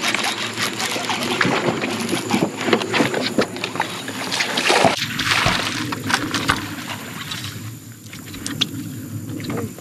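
A hooked bass brought alongside the boat on a baitcasting reel and scooped into a landing net: water splashing and sloshing with many short clicks and rattles, quieter from about halfway.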